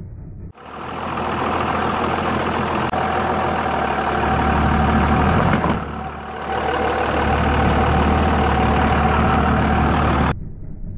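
Cummins turbo-diesel engine of a 2000 Dodge 2500 pickup running steadily close by, with a constant low hum. It comes in abruptly about half a second in, dips briefly in the middle, and cuts off abruptly near the end.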